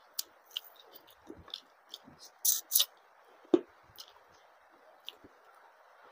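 Close-up eating sounds of someone chewing and picking through a fish head by hand: scattered wet clicks and smacks, with two louder ones just past the middle and a soft thud soon after.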